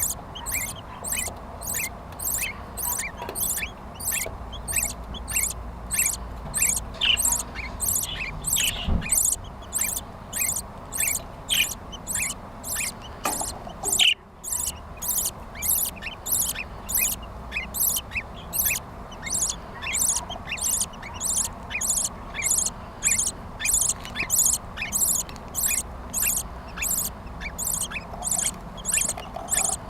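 Budgerigars chirping, with a steady run of high-pitched squeaks repeating about three times every two seconds that breaks off briefly about halfway through.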